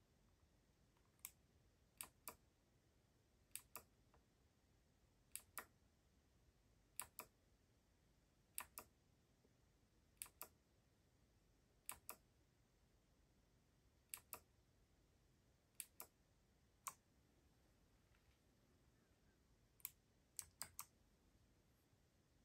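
Single keys pressed slowly and one at a time on a Keydous NJ80-AP mechanical keyboard with Kailh BOX White switches. Each keystroke gives a pair of sharp clicks, press then release, about every one and a half to two seconds, with three quicker strokes near the end.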